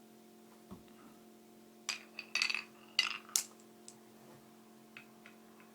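Marbles clicking and rattling along a marble run track: a quick cluster of sharp clacks about two seconds in, then a few light ticks near the end.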